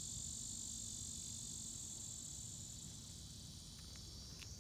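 Steady high-pitched insect chorus, with a couple of faint clicks near the end.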